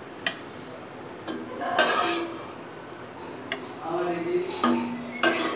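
An indistinct person's voice in a few short phrases, with several light clicks in between.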